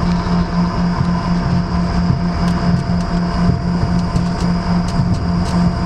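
Airliner cabin noise while taxiing: the jet engines run with a steady whine, over a low drone that pulses about four times a second, with a few light rattles in the second half.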